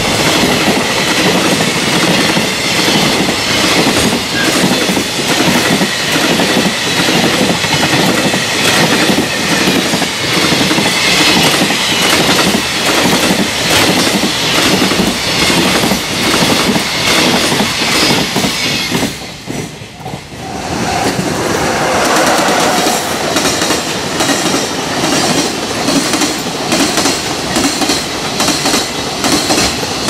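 Freight train container wagons passing at speed, their wheels crossing rail joints in a fast, rhythmic clickety-clack. The clatter drops away briefly about two-thirds of the way through, then picks up again.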